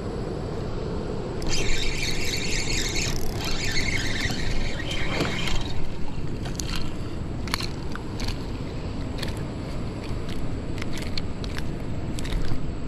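Spinning reel being cranked to reel in a small hooked bass, the fish splashing at the surface. A harsh hiss runs from about a second and a half in to about six seconds in, followed by scattered sharp clicks and splashes.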